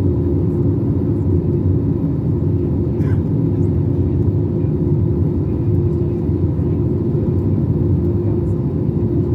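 Steady cabin noise inside an Airbus A321-200 airliner in flight: a low rumble of the engines and rushing air with a steady hum of a few tones over it.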